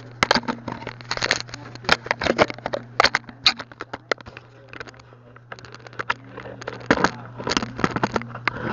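Handling noise from a recording camera being picked up and pressed against skin and clothing: a rapid, irregular run of clicks, knocks and fabric scrapes on the microphone, in two bursts with a quieter stretch between them.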